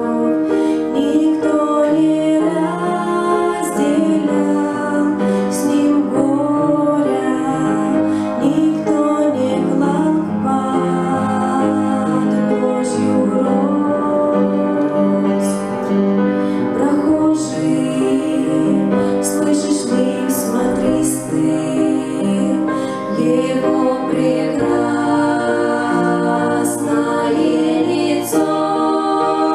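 A church hymn sung with instrumental accompaniment, the singing and music running without a break.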